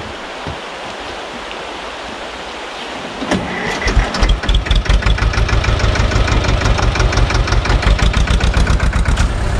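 Shallow river rushing steadily. About three and a half seconds in, the small SAME tractor's diesel engine is cranked and catches, then runs with a fast, even chugging beat.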